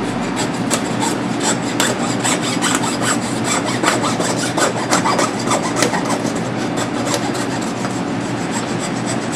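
Hand hacksaw cutting through lamb rib bones to take off the spare ribs: repeated back-and-forth strokes, about three a second.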